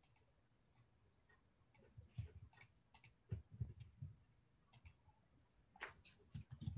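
Faint, irregular clicking and light tapping of a computer keyboard and mouse, with a few heavier taps clustered around two to four seconds in and near the end.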